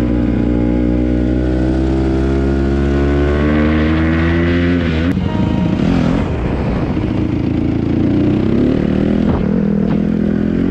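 Honda CRF150R dirt bike's single-cylinder four-stroke engine running at steady throttle, its pitch drifting slowly. About halfway through the note turns rough and uneven, then it settles into a steady pitch again.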